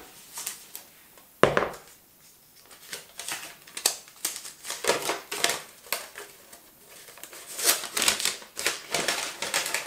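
A folded paper package leaflet being unfolded and handled: irregular rustling and crinkling of thin paper, with one louder sharp crackle about a second and a half in.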